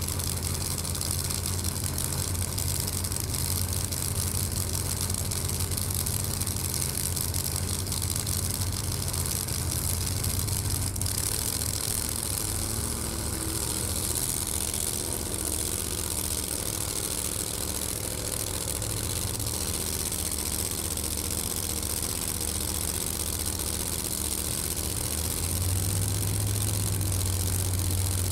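Top Doorslammer drag-racing cars' engines idling steadily at the start line, with no revving.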